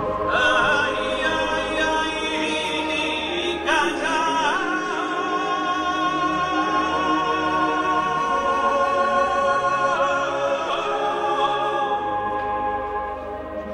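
Background music with singing: voices holding long, sustained notes.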